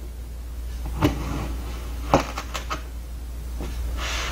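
Knife slicing down through a block of kinetic sand: two sharp clacks about a second apart as the blade meets the table beneath, followed by a few lighter ticks, and a short scraping hiss near the end.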